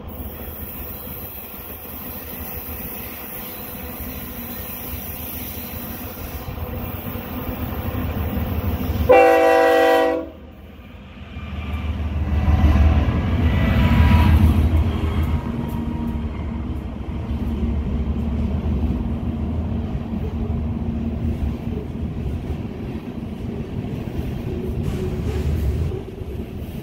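BNSF diesel freight locomotive approaching with a growing rumble and sounding its horn for about a second around nine seconds in; the horn cuts off suddenly. The locomotive then passes close below with a loud engine rumble, followed by the steady rolling rumble of covered hopper cars.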